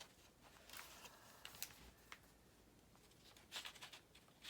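Near silence with faint rustling and light scraping of paper sheets being handled, in a few short spells.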